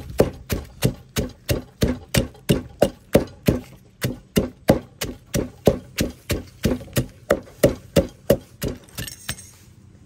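Wooden pestle pounding dried and fresh chillies with sugar in a mortar, making steady, even knocks about three a second as the seasoning for papaya salad is crushed. The pounding stops about a second before the end.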